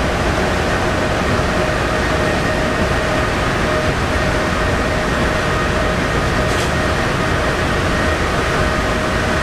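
Passenger train running at speed, heard from inside the carriage: a steady rumble of the wheels on the rails with a constant hum over it.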